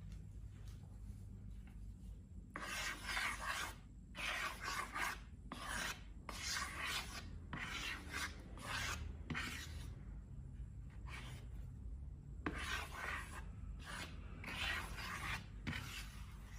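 Slime being worked by hand or tool: repeated short rubbing, scraping strokes, each under a second, in two runs with a pause of about two seconds between them.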